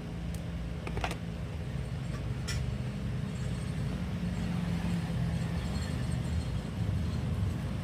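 A steady low droning hum, with small sharp clicks about one second and two and a half seconds in.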